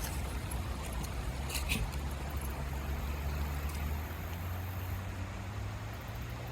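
Low steady rumble of distant road traffic.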